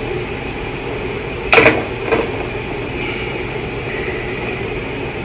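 Two sharp knocks of plumbing parts being handled, a loud one about a second and a half in and a softer one just after, over a steady background hum.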